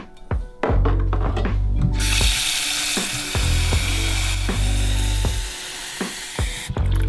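Kitchen tap running into a stainless steel saucepan of cut potatoes, filling it with water; the flow starts about two seconds in and stops shortly before the end. Background music plays underneath.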